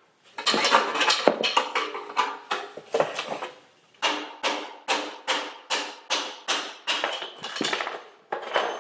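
Repeated hard metallic knocks with a ringing tone, a pry bar being struck to drive the old headset cups out of a bicycle head tube. A fast cluster of blows in the first few seconds, then after a short pause steady blows about three a second.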